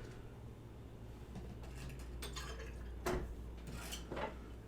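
A few light clinks and knocks of barware, a measuring jigger and a tiki mug with ice, as a liquid is measured out and poured, most of them in the second half.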